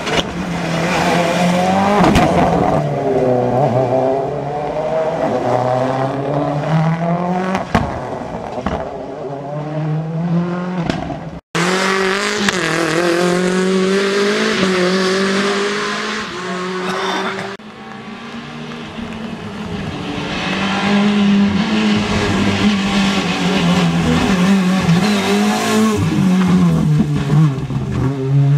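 Rally cars at speed on a special stage, engines revving up and lifting off again and again through gear changes and corners. A brief break about a third of the way in, where another car's run follows.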